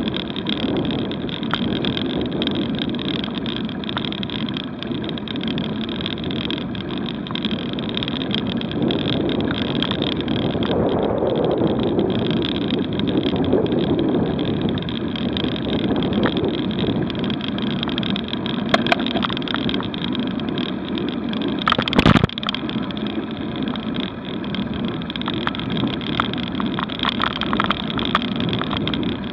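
Steady rumble of road and wind noise from a camera mounted on a bicycle climbing slowly uphill, with one sharp knock about 22 seconds in.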